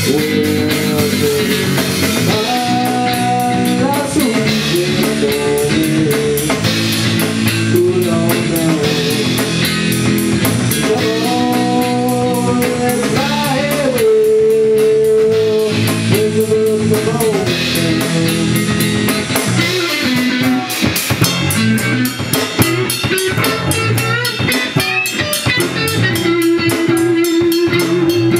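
Music: an instrumental passage of a rock song, with guitar melody lines over drum kit.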